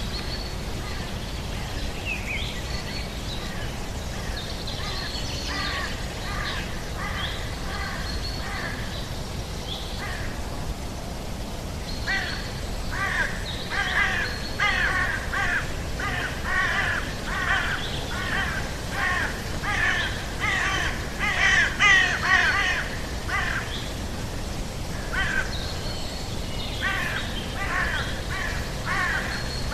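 Harsh, cawing bird calls, several a second, over a steady low rumble. They are loudest about halfway through and come back near the end, with thinner whistled calls before them. This is the jungle-sound ambience of a rainforest-themed restaurant.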